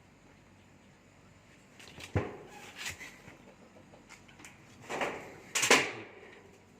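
A pet cat calling in a few short meows, the loudest a little before the end.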